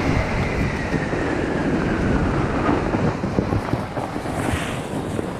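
A motor vehicle engine running under rumble and wind noise, its faint whine slowly falling in pitch as it slows, the whole sound fading away near the end.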